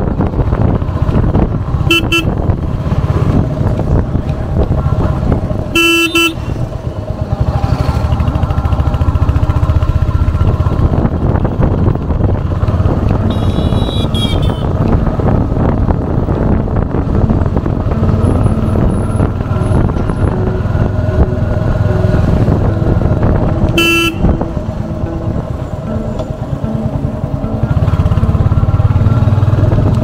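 Royal Enfield Hunter 350's single-cylinder engine running through its stock exhaust while riding in traffic, the rumble swelling and easing with the throttle. A vehicle horn honks briefly three times, about two, six and twenty-four seconds in.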